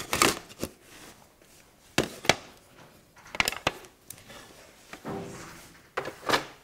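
Picture frames being handled, with a scattered series of sharp knocks and clicks as they tap against each other and are set down.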